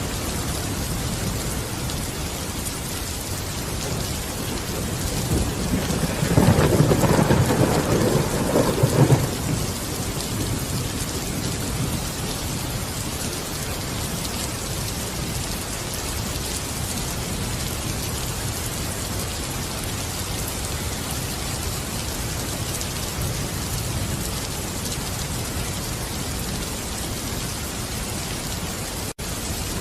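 Steady rain falling, with a roll of low thunder about six seconds in that lasts around three seconds. Just before the end the sound cuts out for an instant, and thunder starts rumbling again.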